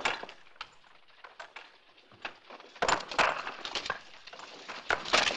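Irregular sharp knocks and clatter from a horse-drawn wagon pulling in and sledgehammers striking rocks. Two louder clattering bursts come about three seconds in and near the end.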